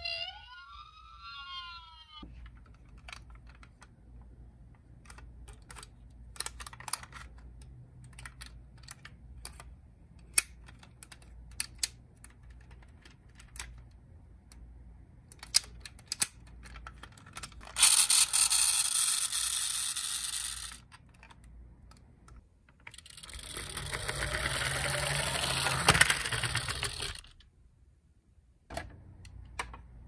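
A toy ambulance's electronic siren wailing up and down, stopping about two seconds in. Then scattered small plastic clicks and taps from toy cars being handled, broken by two hissing, rushing stretches of about three seconds each, the later one swelling and then fading.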